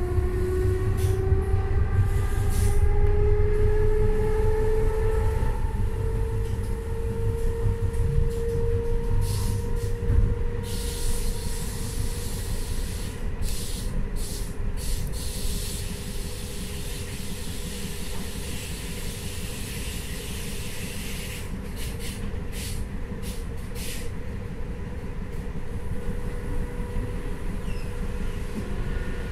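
Inside an ÖBB class 4020 electric multiple unit as it accelerates: a pitched electric whine from the traction drive rises over the first ten seconds or so, then fades under the steady rumble of wheels on rail. The wheels clack over the track in short runs several times.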